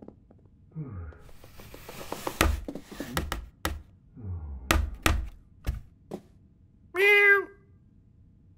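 Cartoon cat sound effects: a run of knocks and thuds as the cat brings its food bowl and sets it down on the floor. These are followed about seven seconds in by one loud meow lasting about half a second.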